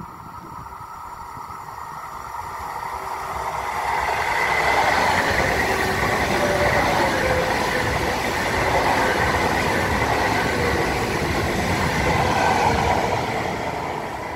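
Alstom AGV 575 high-speed electric train passing through a station at speed without stopping: a rush of wheels on rail and air that swells as it nears, stays loud for about nine seconds as the cars go by, and starts to fade near the end.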